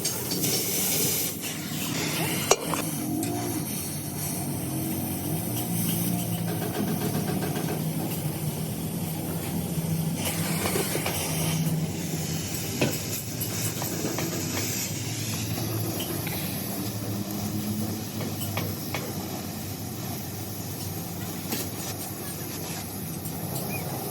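Metalworking workshop noise: a steady hiss over a low hum, broken by a couple of sharp knocks, one about two and a half seconds in and one about halfway through.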